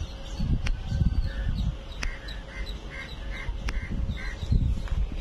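Birds calling outdoors, with a run of about six quick, repeated call notes in the middle, over an uneven low rumble and a few sharp clicks.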